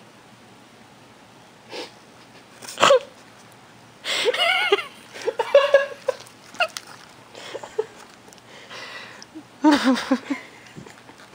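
Small white dog sniffing and snorting close up at the microphone, with a few short, high-pitched vocal sounds about four seconds in and again near the end.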